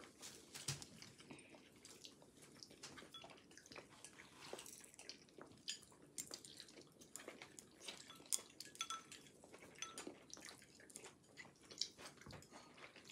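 Faint, scattered clinks and taps of dishes and utensils being handled, a few sharper clicks among them.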